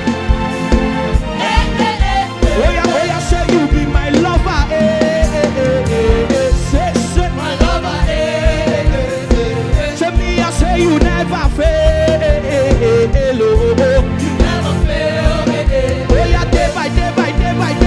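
Live gospel praise music: a band playing a steady, driving beat with bass and drums, with singing carrying a wavering melody over it.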